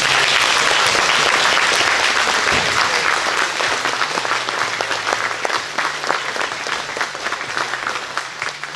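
Audience applauding: many hands clapping together, loudest at the start and slowly dying down.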